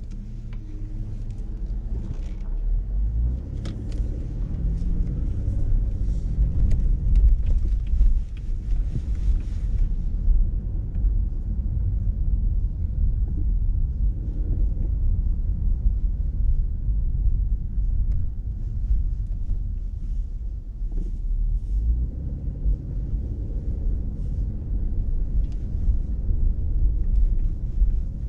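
Low, steady rumble of road and engine noise from a car driving along a city street. A hiss runs over the first ten seconds or so, then stops.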